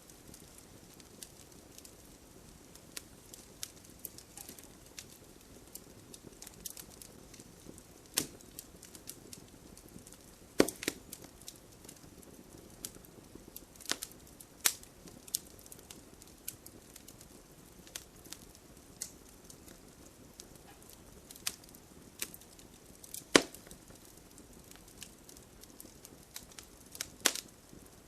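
Wood fire burning in a fireplace: a steady low rush of flames with scattered crackles and sharp pops from the burning logs, a few much louder snaps among them.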